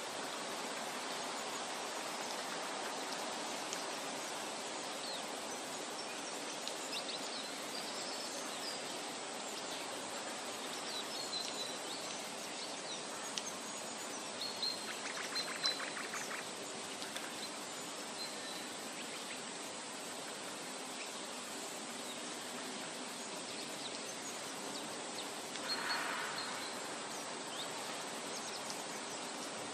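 Forest ambience: a steady hiss of background noise with scattered short, high bird chirps. A fast rattling run of notes comes about halfway through, and a short louder call near the end.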